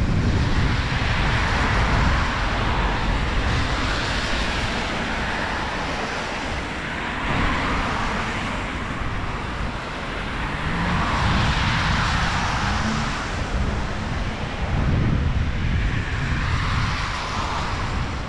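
Strong wind buffeting the microphone with a low rumble, over a steady rushing noise that swells and fades every few seconds.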